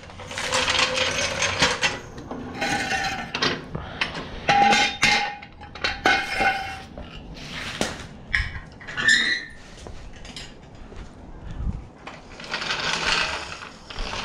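Metal clanking and clinking as garage tools and engine-lifting gear are handled, with a few ringing metallic hits in the middle and a stretch of scraping near the end.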